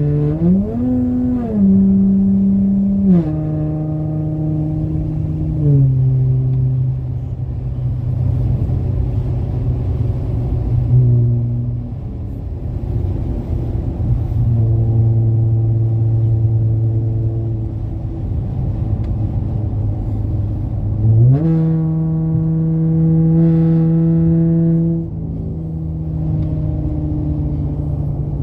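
Car engine and MagnaFlow aftermarket exhaust under way. Near the start the note rises and steps down through gear changes, then holds steady while cruising. About two-thirds of the way through it climbs sharply as the car accelerates, then drops back.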